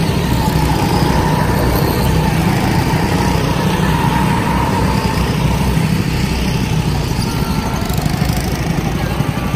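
Several go-karts' small gasoline engines running steadily as the karts drive around the track.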